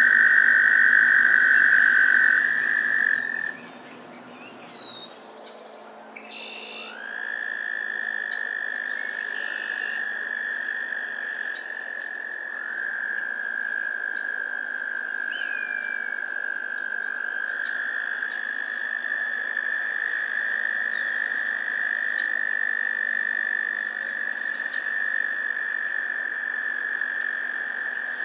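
Several American toads trilling: long, steady, high musical trills at slightly different pitches, overlapping one another. The trilling breaks off a few seconds in, leaving a lull with a short whistled bird note, and starts again about seven seconds in.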